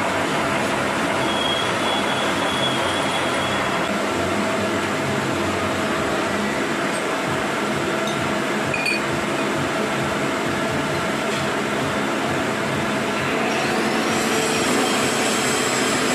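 A machine running steadily, a dense mechanical noise with a faint steady hum, growing a little louder near the end.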